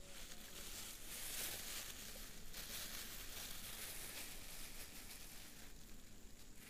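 Faint outdoor ambience: a soft, steady hiss with light rustling.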